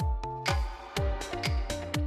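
Background electronic music with a steady kick drum beat, about two beats a second, under held synth chords.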